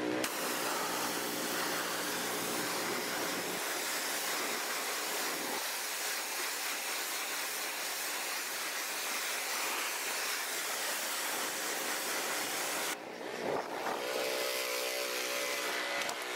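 Pressure washer spraying water in a steady hiss while rinsing the wheels down. Near the end the spray stops briefly and a humming motor tone comes through.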